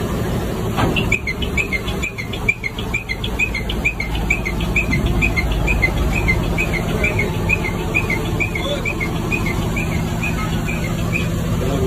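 A bird chirping over and over, about three short calls a second, over the steady low hum of the Tata 4825 truck's diesel engine idling.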